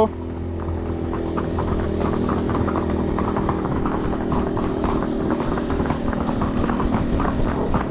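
A small motor vehicle's engine running steadily close by at low speed, with horse hooves clopping on the paved road over it.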